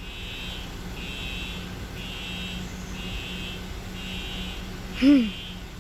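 School fire alarm sounding: a high electronic beep that repeats about once a second, each beep lasting about half a second ("ee, ee, ee"). A brief voice sound cuts in about five seconds in.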